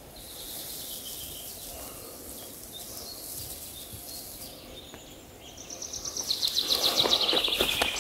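Faint birdsong and insects in woodland. Then a songbird sings a loud, rapid run of notes that falls steadily in pitch for about two seconds. Footsteps on the forest floor come in under the song near the end.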